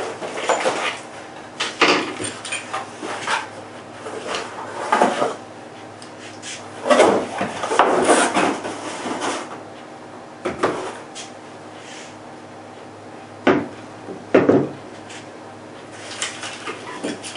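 Cardboard packaging handled while a long rifle box is unpacked: scraping and rustling of the box sliding and opening, with several sharp knocks, two of them close together in the second half.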